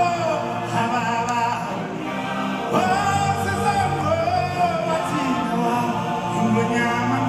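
Live concert music amplified in a large arena: voices and a choir sing long, wavering held notes over low sustained instrumental chords, with a new phrase starting about three seconds in.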